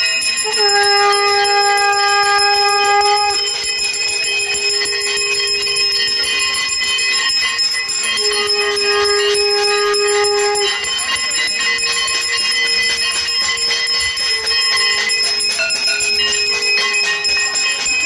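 Conch shell (shankh) blown in long, steady blasts: two strong ones of about three seconds each, one near the start and one around the middle, and a fainter held blast later on. Bells and metal clanging ring throughout underneath.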